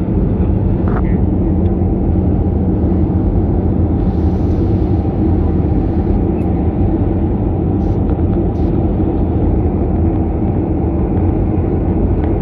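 Jet airliner cabin noise in flight on the descent to landing: a steady low rumble of the engines and rushing air, heard from a window seat.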